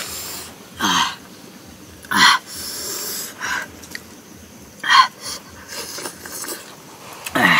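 A man's short, breathy gasps and hissing exhales, roughly one a second, several ending in a falling voiced 'ah'. He is reacting to the heat of chili-spiced grilled frog as he eats.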